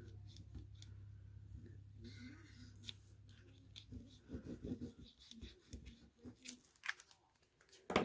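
Faint rustling and light taps of cardstock being handled while liquid glue is dabbed onto it, over a low steady hum that fades out about halfway through.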